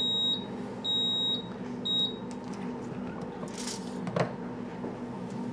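Commercial flip-style waffle iron's timer beeping three times, about a second apart, the cook timer running out to signal that the waffle is done. A single clack follows about four seconds in, over a steady hum.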